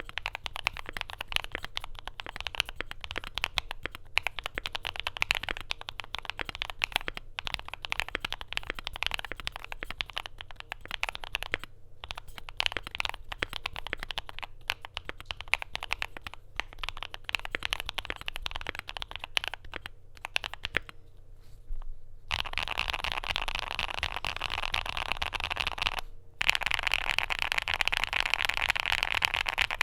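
Typing on a Luminkey80 mechanical keyboard with lubed Gateron Sylva switches, a polycarbonate plate and PBT double-shot keycaps: a quick run of keystroke clacks. After a short pause about 21 seconds in, the typing comes back faster and denser. After another brief break near the end it gets louder still.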